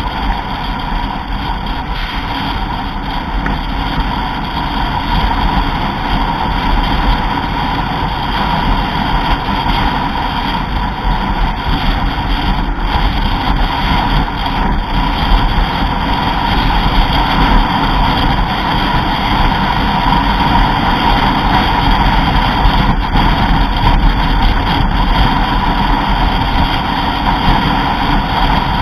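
Steady engine and road noise of a vehicle driving at speed, growing gradually louder through the first half.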